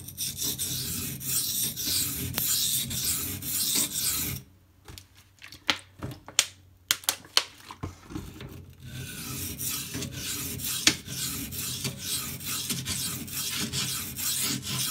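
Steel knife blade (K390) being stroked back and forth across a wet coarse 240-grit silicon carbide water stone, raising a burr. The scraping stops for about four seconds midway, when a few sharp clicks are heard, then starts again.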